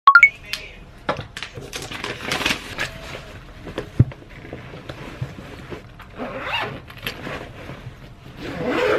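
Rustling and scraping of a black fabric shoulder bag as it is packed and handled, with scattered small clicks and knocks. A sharp click at the very start and another knock about four seconds in stand out.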